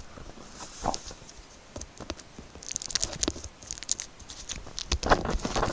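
Packaging and parts of a whiteboard set being handled: scattered light taps and clicks with rustling and crinkling, busiest about three seconds in and again near the end.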